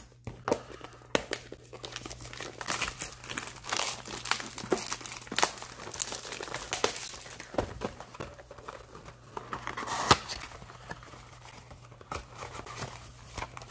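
Plastic shrink wrap being torn and crinkled off a cardboard trading-card blaster box, then the cardboard box being opened, with irregular crackles and one sharper snap about ten seconds in.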